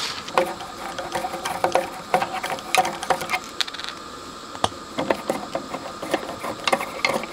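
Socket driver unscrewing the retaining nut of a quarter-inch headphone jack on a metal front panel: a run of irregular small metallic clicks and scrapes.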